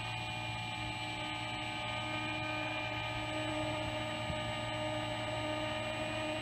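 Electric motor and propeller of an FMS Pilatus PC-21 1100mm model plane running steadily, a whining turboprop-like tone over a low hum, growing slightly louder.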